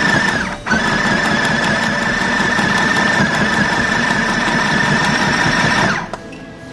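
Mini portable sewing machine running steadily, stitching a seam through fabric. It stops briefly about half a second in, then runs on and cuts off near the end.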